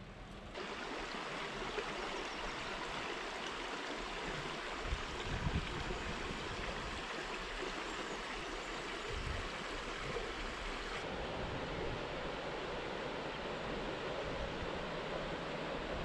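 Water of a shallow stream running over stones, a steady rushing, with a few low thumps about five seconds in. About eleven seconds in the sound shifts to the broader flow of the Main river over a riffle.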